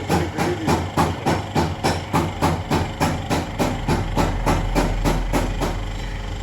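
Rapid, even knocking, about four strokes a second, like hammering, stopping about six seconds in and leaving a steady low hum.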